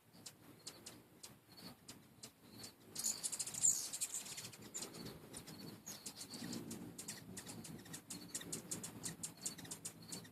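Hummingbirds calling around a feeder: a steady run of short, high chip notes, with a louder burst of rapid twittering chatter about three seconds in.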